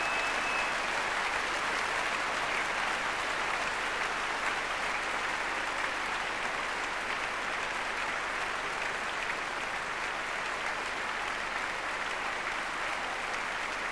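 A large concert-hall audience applauding steadily after a symphony ends, a dense mass of clapping that eases off slightly toward the end.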